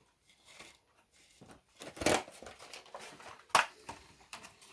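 Handling noises from putting a feeder insect into a scorpion enclosure: scattered clicks and short rustles, a louder rustle about two seconds in and a sharp click about a second and a half later.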